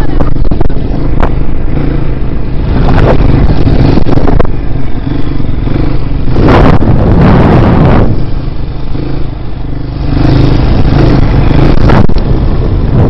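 Dirt bike engine running as the bike is ridden, picked up by a helmet-mounted camera's microphone, with loud rushes of noise swelling and fading several times over it.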